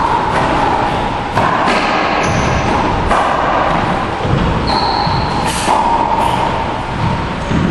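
Racquetball being struck and bouncing off the walls of an enclosed court: several sharp smacks over a steady background hiss, with a brief high squeak about five seconds in.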